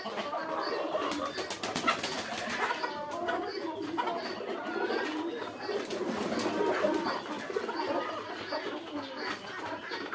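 Chickens calling and clucking, several birds at once, with a short high chirp repeating about twice a second.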